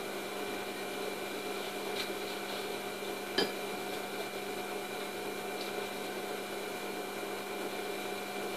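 Steady electrical hum in a kitchen, with a few faint ticks as food is pushed onto a wooden skewer and one sharper click about three and a half seconds in.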